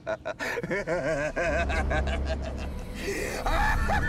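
A person's voice in short, quickly repeating pitched breaths or cries. A low rumble comes in underneath about a second and a half in, and more voice follows near the end.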